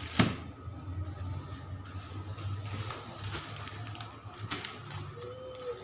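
Scattered clicks and knocks of things being handled and moved, with a sharp click just after the start, over a steady low hum.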